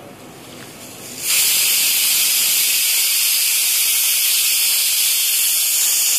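A loud, steady, high-pitched hiss that switches on suddenly a little over a second in and cuts off abruptly.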